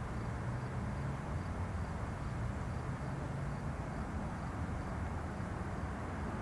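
Steady low rumble and hiss of outdoor background noise picked up by an early-1990s camcorder's built-in microphone. A faint, regular high ticking repeats a little over twice a second.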